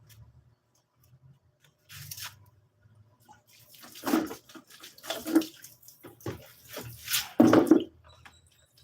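Water splashing and pouring in irregular bursts, as when water is run or poured into a basin or container, loudest about two-thirds of the way in.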